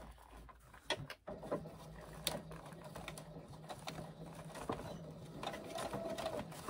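Brother sewing machine stitching a seam through layered bag fabric: a few sharp clicks, then about a second and a half in the motor starts and runs at a steady speed, humming with rapid needle ticking.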